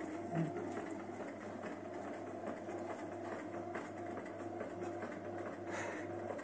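Bread maker running while kneading: a steady low motor hum with a churning mechanical rattle. A single short low thud about half a second in.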